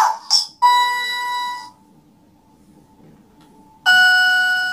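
Toy learning laptop's electronic piano sounding two held beep-like notes: a higher one about half a second in, lasting about a second, and a lower one near the end. The first note is preceded by the tail of the toy's synthetic voice.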